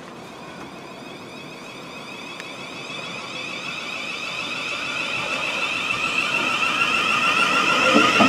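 Electric multiple-unit passenger train approaching along the platform, its motors giving a high, slightly warbling whine of several tones over rumbling wheel noise, growing steadily louder as it draws alongside.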